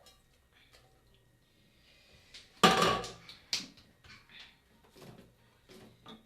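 A spoon clattering and scraping in a metal cooking pot as sugar-coated popcorn is stirred: one loud clatter about two and a half seconds in, a sharp knock about a second later, then lighter taps.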